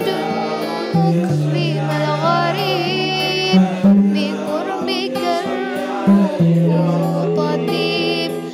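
Music: a voice singing an ornamented, wavering melody over long held low notes that change pitch every second or two.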